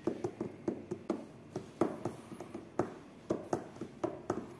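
Irregular light taps and clicks of a smartphone being handled in the hand and turned over, about four a second.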